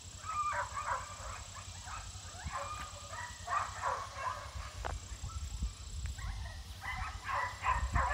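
A dog whining and yipping in two spells of quick, high calls: the first in the opening three seconds or so, the second starting about seven seconds in.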